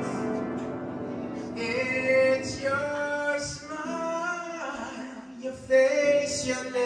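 A man singing a slow love ballad into a microphone, accompanying himself on a ukulele, with long held, wavering sung notes from about two seconds in.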